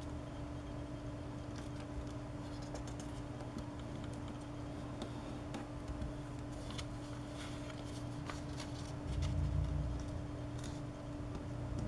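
Paper rustling and crinkling as it is folded and creased by hand, with scattered small crisp clicks, over a steady low hum. A low rumble swells about nine seconds in.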